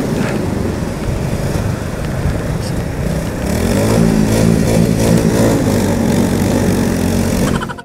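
Two single-cylinder motorcycles, a KTM RC 200 and a Royal Enfield Bullet 350, running at speed side by side, with wind rushing over the microphone. About halfway through the engine note gets louder and rises and falls in pitch.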